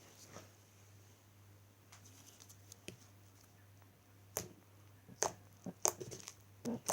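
Slime being handled and squished by hand: a quiet stretch, then a few short sharp clicks and pops in the second half, over a faint steady low hum.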